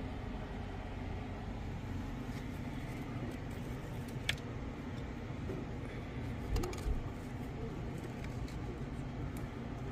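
Steady low background rumble, with a sharp click about four seconds in and two knocks near seven seconds as a wicker basket is handled.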